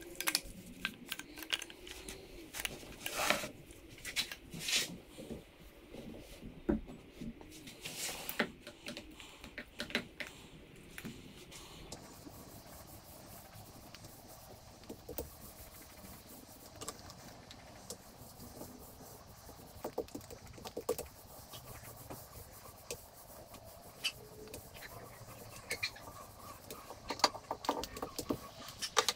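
Scattered light clicks, taps and knocks of hand work at a workbench, with a finish tin and small tools being handled and set down. Busy in the first twelve seconds or so, then sparser.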